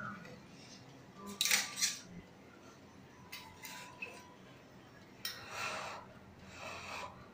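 Stainless steel ladle and spoon clinking and scraping against a steel pan, bowl and plate as noodles are served and stirred: a cluster of sharp clinks about a second and a half in, lighter clinks with a short ring a couple of seconds later, then softer scraping.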